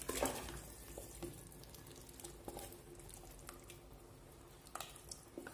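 Thick tomato-sauced lamb and chickpeas being scraped out of a pot with a wooden spatula and dropping into a pot of boiling water: soft splashes and plops, loudest right at the start, then a few fainter ones.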